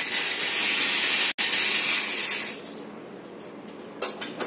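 A pressurised water jet hisses as it sprays out of a drill hole in a PVC water pipe, then fades away about two and a half seconds in. A fast, regular pulsing starts near the end.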